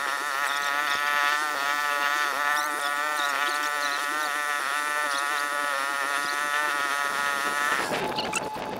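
Small boat engine running at a steady speed, a buzzing drone whose pitch dips slightly now and then. It drops away abruptly about eight seconds in.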